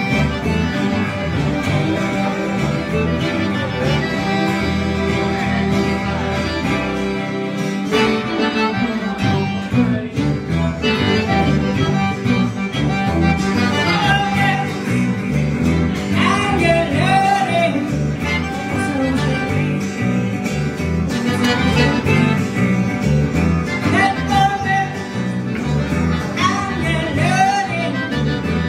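Live Cajun band playing: fiddle over accordion, guitars and electric bass, with a regular bass beat. The fiddle line slides and bends in pitch at times.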